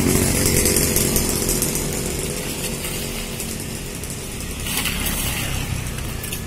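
Small engine running close by, a motorbike on the street, loudest at the start and fading over the first second or so, over steady street traffic noise; a brief hiss about five seconds in.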